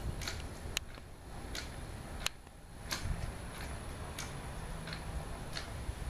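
Electric motor and linkage bar rocking a wooden ship's wheel back and forth, the mechanism clicking sharply about every half second to second. Wind rumbles on the microphone underneath.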